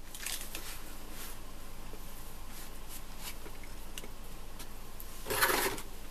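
Quiet handling noises over a faint steady room hiss: a few light ticks, then a short louder rustle about five seconds in, as of paper or kit parts being moved by hand.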